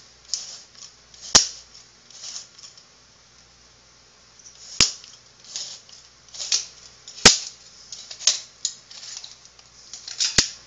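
Copper pipe cutter being worked around a sink drain extension pipe: soft scraping strokes of the cutting wheel, with four sharp clicks a few seconds apart.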